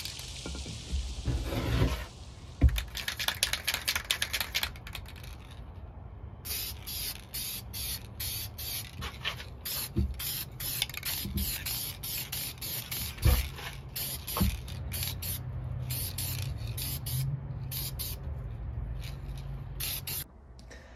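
Aerosol spray paint can hissing in many short bursts, as gray aluminum-colored paint is sprayed onto the TGV delete parts.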